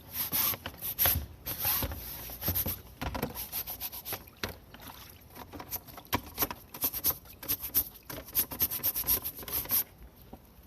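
A perforated range hood filter being scrubbed clean in quick, uneven rubbing strokes that stop suddenly near the end.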